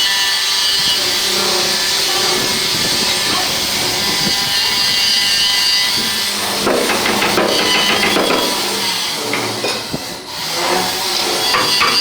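Hand-tool work on marble and granite during a kitchen installation. A steady rasping or grinding noise gives way, about two-thirds through, to a run of irregular knocks and scrapes.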